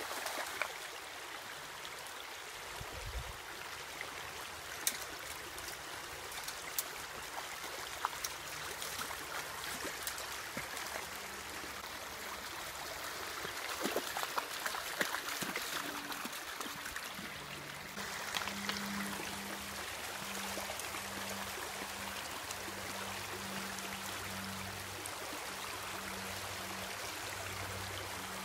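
Shallow, rocky creek running steadily over stones, with occasional splashes as Australian cattle dogs jump and wade through the water. The water grows a little louder about two-thirds of the way through.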